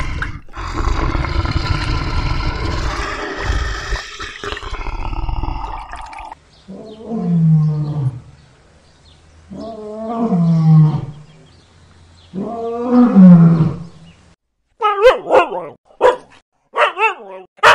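A brown bear roars: one long, rough roar for about six seconds. A lynx then gives three long yowling calls a few seconds apart, each sliding down in pitch. Near the end a husky gives a quick run of short barks and yips.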